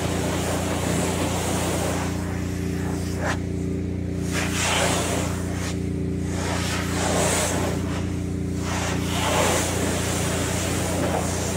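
Pressure washer running with a steady hum while its water jet hisses against the glass of solar panels, swelling and fading about every one to two seconds as the wand sweeps back and forth.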